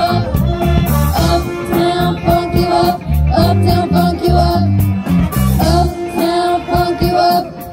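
Live pep band playing a song, with trumpets and saxophones over low bass notes and a steady drum beat, and voices singing into microphones.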